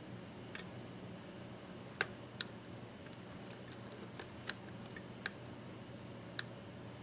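Light, irregular clicking of a lock pick working the pins of a Bearsback challenge lock under very light tension: about half a dozen sharp ticks, unevenly spaced.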